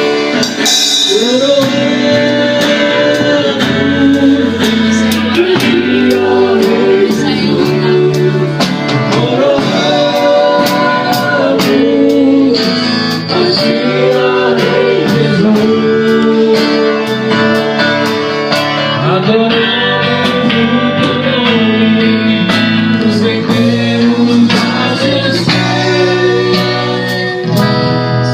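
Band playing a gospel worship song live: voices singing long held notes over guitar, with a steady beat of percussion hits.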